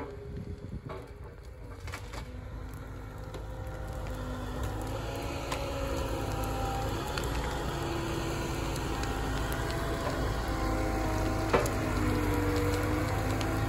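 Liebherr wheeled excavator running beside a burning pile of green brush. The fire crackles and hisses while the machine's engine and hydraulics drone and whine in shifting tones, growing louder from about four seconds in as the grab swings branches onto the fire. One sharp knock near the end.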